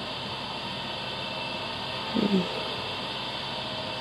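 Steady background hiss of room noise, with one short low vocal sound from a person, falling slightly in pitch, a little after halfway.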